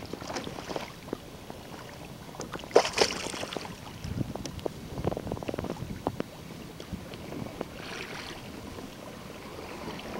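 Choppy water slapping and splashing against a kayak's hull, with irregular sharp slaps and a louder splash about three seconds in.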